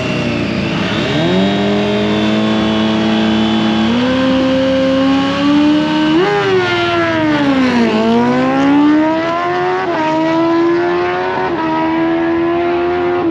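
Honda Africa Twin and Kawasaki ZX-10R motorcycle engines revving at a drag-race start line. Revs are held steady and stepped up, then rise sharply about six seconds in, dip and climb again as the bikes launch and pull away down the strip.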